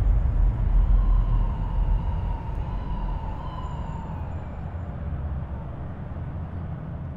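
Deep low rumble slowly fading out, with a faint wavering tone above it in the first few seconds.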